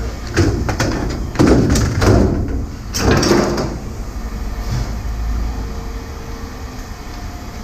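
A handful of heavy clanks and scrapes of metal being handled, four or so knocks with a ringing tail in the first few seconds, over a steady low rumble. After that it goes quieter.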